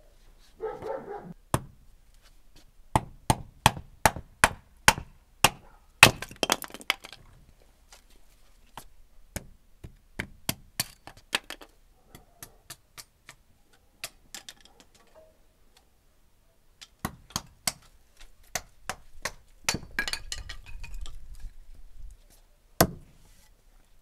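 Axe splitting kindling on a wooden stump chopping block: runs of sharp wood knocks and cracks, a few per second, in several bursts, and one last loud chop near the end as the axe is driven into the block.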